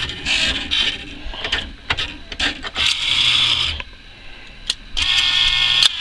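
Arcade claw machine at work: mechanical whirring and sharp clicks of the claw mechanism as the claw lowers and grabs a plush toy, over the machine's electronic music.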